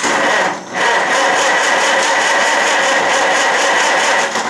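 International Harvester 300 Utility tractor's four-cylinder engine being turned over by the starter, cranking steadily with a brief break just after the start but not firing: the distributor rotor has been left out, so no spark reaches the plugs.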